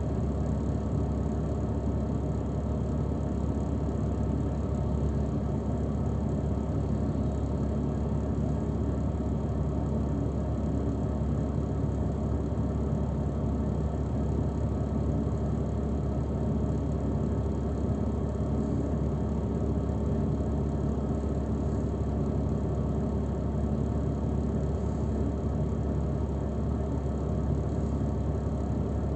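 Shuttle vehicle heard from inside the cabin: a steady low engine and road rumble with no changes.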